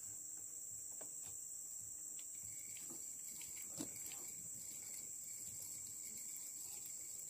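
Steady high-pitched insect chorus droning without a break, with one soft knock about four seconds in.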